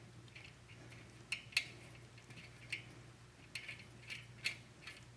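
Light, irregular metallic clicks and taps of small engine parts being handled and fitted by hand, about eight in all, over a faint steady hum.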